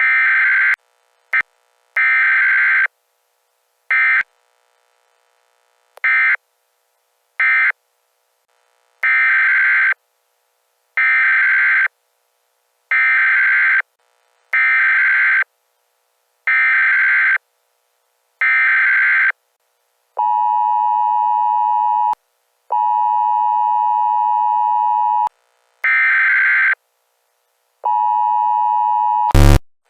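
Emergency Alert System signal stuttering in and out. Short buzzy bursts of SAME digital header data come about every two seconds. About twenty seconds in, the steady two-tone EAS attention signal follows in three broken stretches. A sharp loud click comes just before the end.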